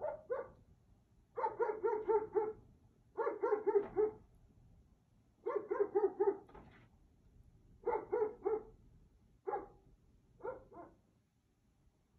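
A dog barking in quick runs of four or five barks every couple of seconds, thinning to a single bark and a pair near the end. The owner says the dog was barking at something making noises on his roof.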